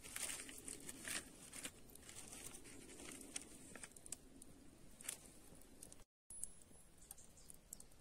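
Campfire embers under a clay roof tile of cooking meat crackling faintly with scattered sharp pops. The sound drops out briefly about six seconds in.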